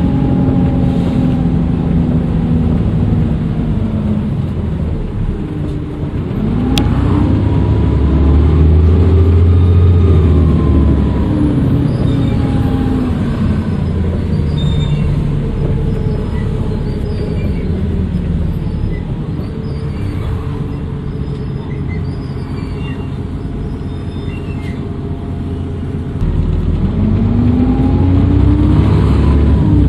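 Dennis Trident II double-decker bus engine pulling away under load twice, its pitch rising as it accelerates, with a turbocharger whistle over the engine note. Between the two pulls the engine runs at a steadier, lower level, and there is a single sharp click about seven seconds in.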